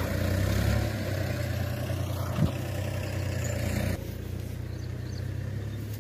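Wind buffeting the microphone: a steady low rumble with a hiss above it and a brief knock about two and a half seconds in. It drops quieter about four seconds in.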